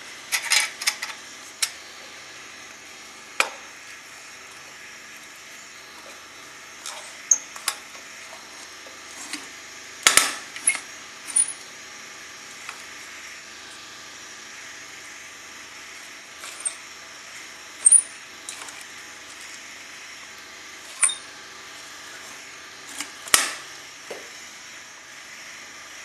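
Metal burner and chimney parts of a Valor paraffin heater clinking and knocking as they are handled and fitted together: a dozen or so short, sharp clicks in scattered clusters over a steady background hiss.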